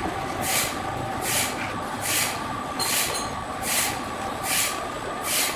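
Sawmill machinery running: a steady hum with a hissing rasp that repeats evenly, about every 0.8 seconds.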